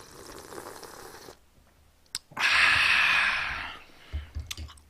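A person slurping spicy stew broth: a softer slurp, then after a click a loud, longer slurp of about a second and a half, followed by a few low thuds near the end.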